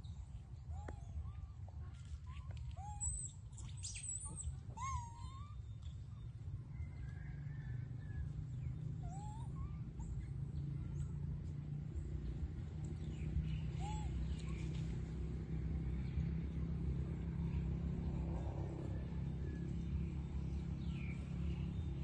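Scattered short, high squeaky calls from long-tailed macaques, mostly in the first half, over a steady low rumble.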